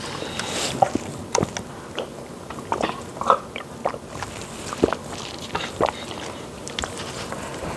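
Close-miked eating and drinking mouth sounds: scattered short wet smacks and clicks of chewing and sucking on food and a plastic water bottle.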